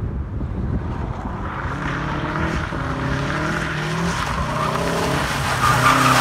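Subaru WRX's flat-four engine revving up and down as the car drifts through a turn toward the listener, getting louder as it comes closer, with tyre squeal building and loudest near the end.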